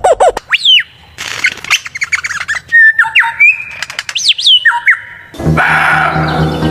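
Bird calls: separate squawks and whistled notes that slide up and down in pitch, after the tail of a fast run of repeated calls. Music comes in about five seconds in.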